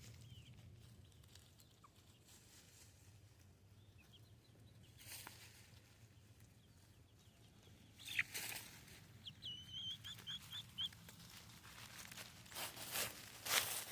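Backyard chickens making odd, faint calls: a quick run of five or six short high chirps about nine seconds in, with scattered scratching and rustling around it.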